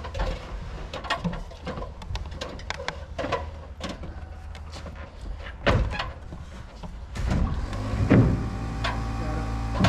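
Scattered knocks and taps of hand work on the roof framing, then about seven seconds in a motor starts and runs with a steady hum.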